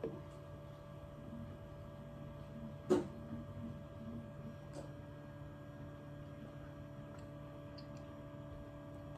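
Steady electrical hum with a few soft clicks, the loudest about three seconds in, from a red-bean-paste pastry being broken apart and eaten.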